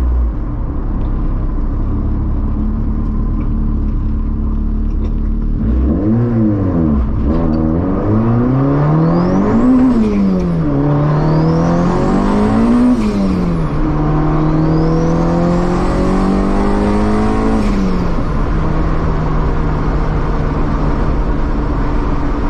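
Honda EF Civic's engine heard from inside its sound-deadened cabin: steady at first, then pulling hard about six seconds in, its pitch climbing and dropping sharply three times as through gear changes. It holds a steady higher note, then falls back to a steady run. A faint high whine rises with each pull.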